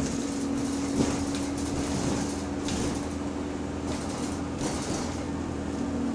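Bus interior noise while driving: a steady drivetrain hum with a held low whine, the subtle odd differential noise that the recording is made to show, with scattered light clicks and one sharp knock about a second in.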